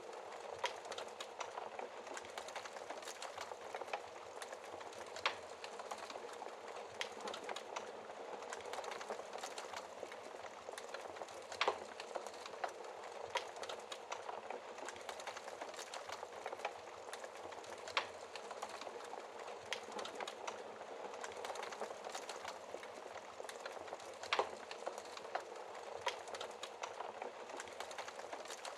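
Wood fire burning in a fireplace: a steady crackle and hiss with irregular small snaps and a few louder pops.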